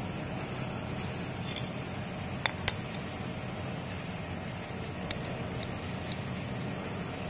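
Short metallic clicks and taps as a grinding disc and its outer flange lock nut are fitted by hand onto the spindle of a Makita M0900B angle grinder, which is not running. There are two clicks about two and a half seconds in and a few more between five and six seconds, over a steady low background hum.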